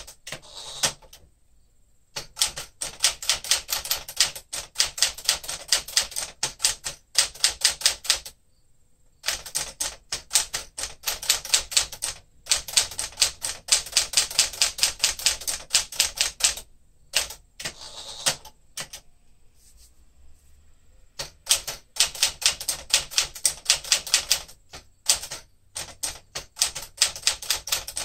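1967 Sears Tower Citation manual typewriter, built by Smith Corona, being typed on: quick runs of crisp keystrokes, several a second, broken by short pauses.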